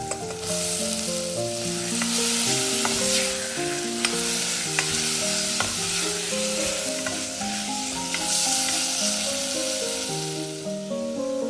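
Food sizzling as it fries in oil in a pan and is stirred, with the spoon clicking against the pan several times.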